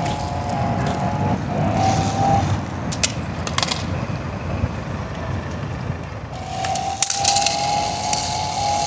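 RC drift car running: a steady high motor whine, gone for a few seconds in the middle, over a constant low rumble, with a few sharp clicks.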